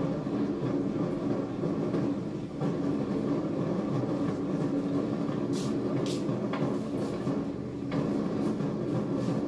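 A marching crowd on a street: a steady rumble of many people walking, with a few brief hissy sounds about six to seven seconds in.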